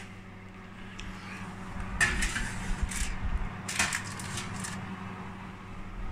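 Metal baking tray being slid onto an oven shelf: a few sharp clanks and knocks with a scraping rumble between about two and four and a half seconds in, over a steady low hum.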